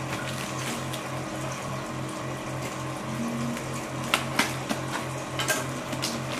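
Steady hiss with a low hum that pulses quickly and evenly, and a few sharp clicks and crackles in the second half as a taped cardboard parcel is cut and handled.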